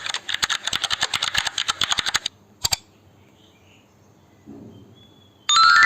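Rapid typing on a computer keyboard for about two seconds, then a quick double click. Near the end a bright chiming sound effect starts, its ringing notes climbing in pitch.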